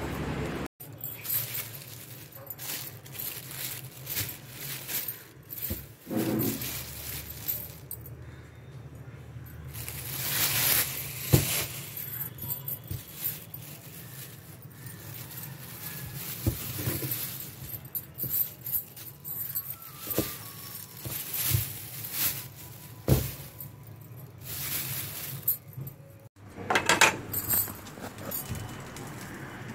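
Household handling noises: scattered knocks and clinks of steel kitchenware, with short stretches of rustling.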